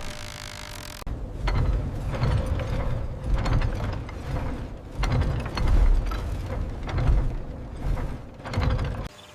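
Ratcheting, clanking metal mechanism: irregular bursts of clicking and gear-like clatter over a low rumble, during repair work on the damaged windmill's works.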